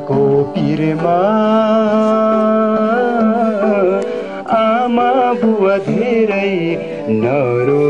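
A voice singing a slow lament in Nepali, holding long notes with a slight waver, over steady instrumental accompaniment.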